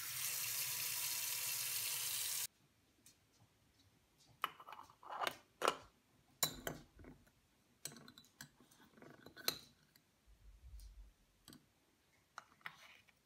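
Tap water running into the bottom chamber of a stovetop moka pot, cutting off suddenly about two and a half seconds in. Then scattered light metal clinks and taps as the filter funnel is set in and coffee is spooned into it.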